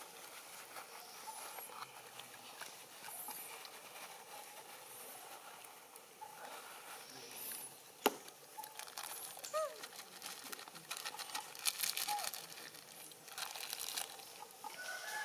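Faint outdoor ambience of scattered rustling and crackling, with one sharp click about eight seconds in, a denser patch of rustling near the end, and a few short high chirps.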